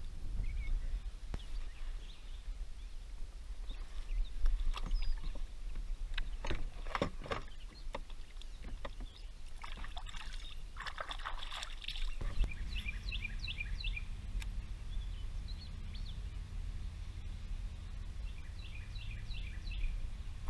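Knocks and handling sounds on a plastic kayak, then water splashing about ten seconds in as a largemouth bass is released over the side.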